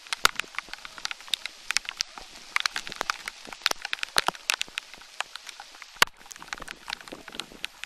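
Rain: many irregular sharp drops tapping close to the microphone over a light hiss, one louder tap about six seconds in.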